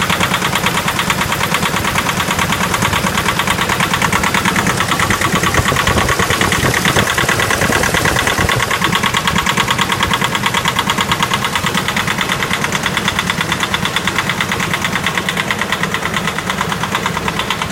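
Nissan YD25 2.5-litre four-cylinder diesel idling just after a cold start in −15 °C frost, with a loud, fast, even knock running through it. The engine knocks hard when cold.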